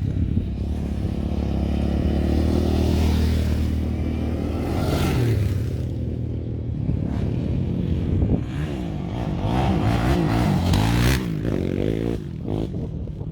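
Engine of an off-road vehicle, such as a dirt bike or quad bike, running close by. Its pitch holds steady at first, then rises and falls repeatedly in the second half as it revs up and down.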